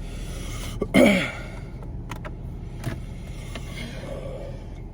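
A short, loud throat sound from a person, pitch falling, about a second in: a reaction to the burn of a hot-pepper tincture in the throat. A steady low hum underneath.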